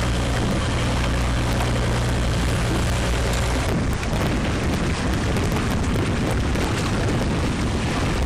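Wind buffeting the microphone over the rush of water aboard a sailboat underway. A steady low hum runs under it for the first few seconds and stops at a cut about four seconds in, after which the wind noise turns more gusty.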